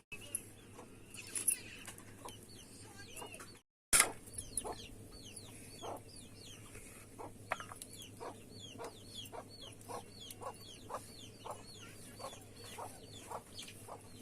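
Chickens calling, many short high chirps in quick succession, with a sharp knock about four seconds in.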